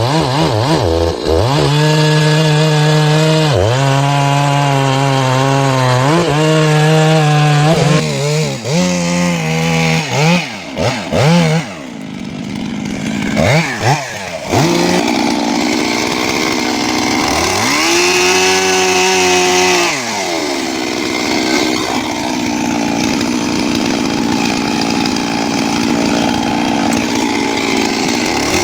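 Chainsaw engine running hard and cutting wood. For the first several seconds it holds high revs with brief dips. Through the middle it is revved up and let fall in quick, choppy bursts, then settles into steadier running with one higher-pitched run.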